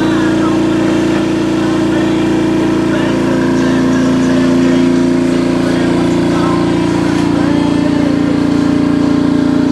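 An engine running steadily with an even drone, its pitch shifting slightly about seven seconds in.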